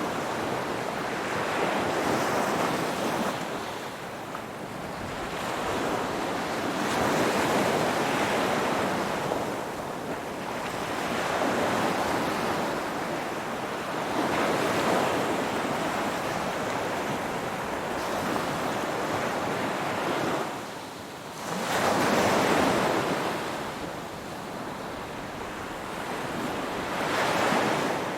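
Ocean waves breaking and washing in one after another, the surf noise swelling and falling every few seconds. There is a brief lull about three-quarters of the way through before one of the stronger waves.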